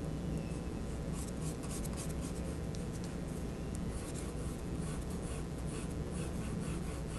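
Pencil scratching across drawing paper in short sketching strokes, coming in bursts, over a steady low hum.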